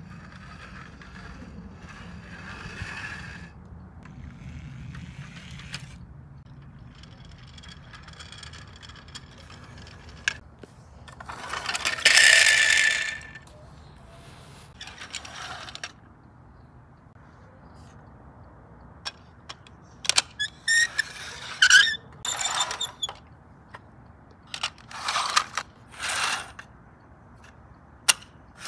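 Plastic Lego Duplo toy cars being handled and rolled: irregular rattles of small plastic wheels and sharp clicks of plastic parts. The longest and loudest rattle comes about twelve seconds in, with a quick run of clicks and rattles in the last ten seconds.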